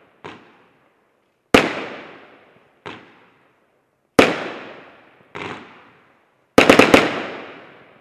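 Shots from a 20-shot consumer fireworks battery. Sharp bangs alternate louder and softer about every second and a half, each with a fading echo, then a quick run of about five bangs near the end before it falls silent.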